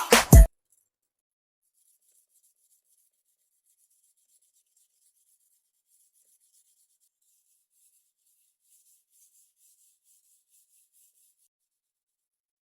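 Music cuts off abruptly, then faint, rhythmic scraping strokes of a kitchen knife being sharpened on a whetstone, stopping about a second before the end.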